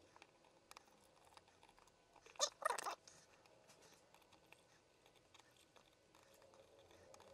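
Faint small clicks of tool handling, with one short harsh scrape about two and a half seconds in as a screwdriver levers at a hard drive board's SATA connector while a soldering iron heats its pins to desolder it.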